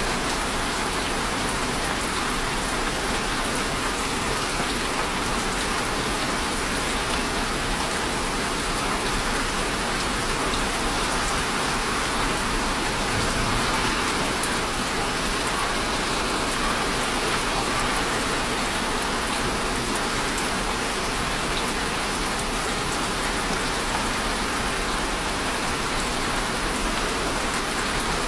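Steady rain falling, an even hiss of drops with scattered faint patters.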